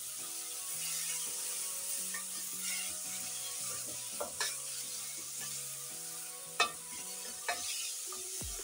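Chopped tomatoes, bell peppers and onions sizzling in hot oil in an aluminium pot while a wooden spoon stirs them. There are a few sharp knocks of the spoon against the pot, the loudest about two-thirds of the way in.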